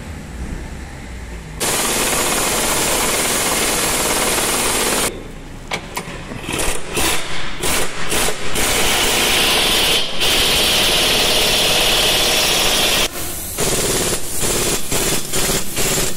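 Pneumatic impact wrench running in long bursts with a hard rattle, stopping and starting several times in quick short pulls between two longer runs, working the bolts of a car's front lower control arm.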